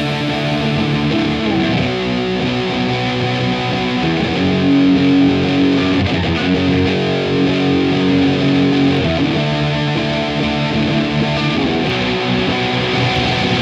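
Experimental rock music led by distorted electric guitar, with held chords and a long sustained note in the middle.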